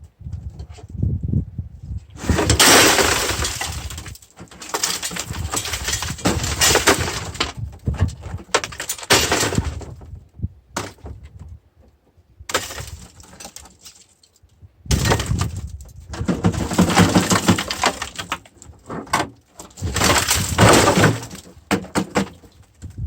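A rusted microwave oven tipped up and shaken over a steel scrap bin, loose rust flakes and debris clattering and crashing into the metal bin in several long bursts with short pauses between.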